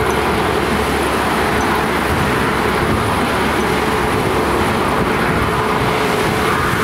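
Jet engines of an Airbus A320-family airliner running at low taxi power as it rolls along the taxiway: a steady rumble with a steady mid-pitched hum.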